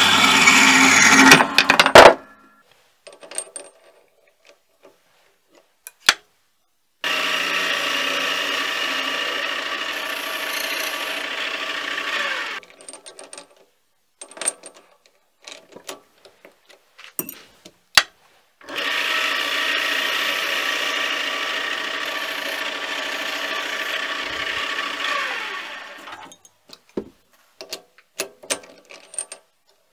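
Metal-cutting bandsaw blade cutting through steel round bar, stopping sharply about two seconds in. Then small metallic clicks from handling the workpiece and lathe chuck, and twice a mini lathe's motor running steadily for several seconds and winding down, with more clicks between the runs.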